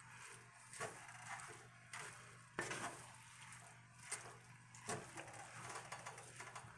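Wooden spatula scraping through fried rice against a cast-iron skillet as it is stirred, with soft scrapes and several sharper knocks on the pan.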